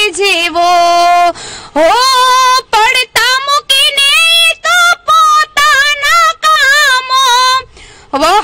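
A woman singing solo without accompaniment, in long held notes with vibrato. There are short pauses for breath about a second and a half in and near the end.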